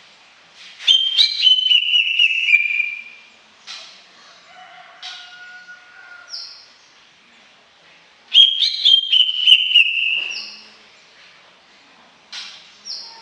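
Green leafbird (cucak ijo) singing two loud bursts of song, one about a second in and one about eight seconds in. Each burst is a quick run of sharp notes that slides into clear whistled tones falling in pitch. A few short high notes come between the bursts.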